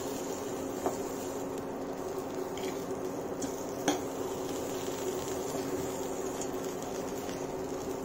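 A spatula stirring oats poha in a kadhai: soft scraping and squishing, with a light knock about a second in and a sharper knock near four seconds, over a steady hum.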